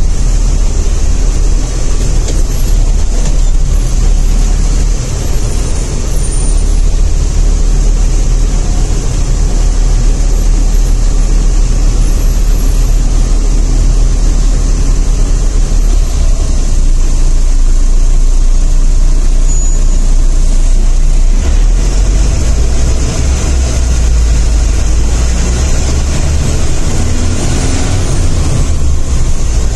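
Sleeper coach's engine running with road noise, heard from inside the driver's cabin. The engine's low rumble grows heavier over the last several seconds.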